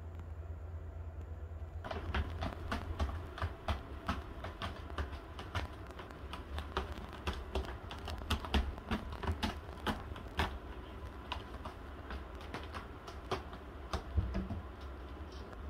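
Cat claws scratching and catching on a sisal-rope scratching post: irregular sharp clicks and scrapes, a few a second, starting about two seconds in. Near the end a soft thump as a cat jumps down from the wooden cat house.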